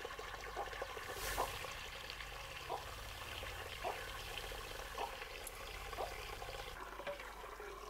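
Soaking water trickling steadily from the outlet pipe of a paddy-parboiling drum into a brass basin, with a few faint ticks. The water is being drained off the paddy after four hours of soaking.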